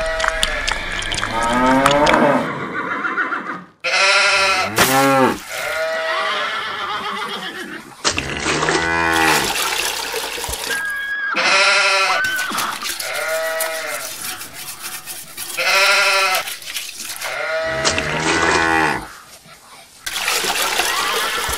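Sheep bleating again and again, a wavering call about every two seconds.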